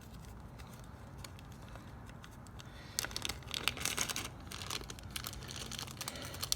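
Plastic packaging crinkling and rustling as a new replacement part is taken out of its bag, with a few faint ticks at first and a busier run of crackling in the second half.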